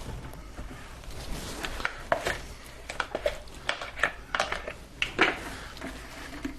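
Kitchen containers and utensils clinking and knocking in a quick irregular run of small hits, mostly in the middle of the stretch, as ingredients are measured and handled.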